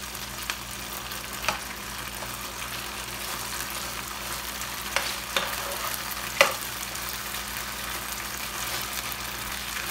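Masala-coated chicken pieces sizzling in a hot non-stick frying pan while a metal spoon stirs and scoops them. A few sharp clicks of the spoon against the pan, the loudest about six and a half seconds in.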